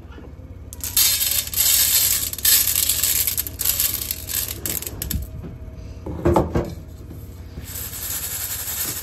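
Dry cat food pouring and clattering into a feeding bowl, twice: a pour of about four seconds, then a shorter one near the end.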